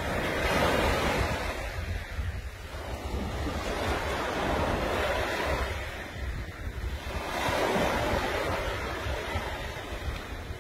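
Small waves breaking and washing up a sandy beach, swelling and fading about three times, over a steady low rumble of wind on the microphone.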